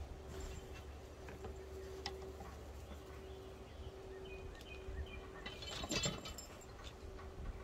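Outdoor garden ambience: scattered birds chirping over a low wind rumble, with a faint steady hum that comes and goes. There is a brief louder crackle about six seconds in.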